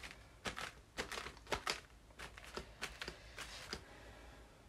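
Paint sponge dabbing through a stencil onto a card: a run of soft, irregular taps, several a second, that stops near the end.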